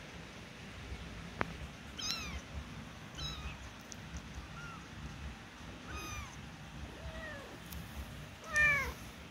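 Week-old newborn kittens mewing: about six short, high-pitched cries that fall in pitch, roughly one every second or so, the loudest near the end. A single sharp click sounds about a second and a half in.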